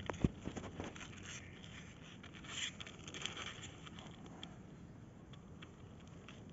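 Very young kittens' paws and claws scratching and scraping on the cardboard floor of a box as they crawl, faint, with scattered light clicks and a sharper knock just after the start.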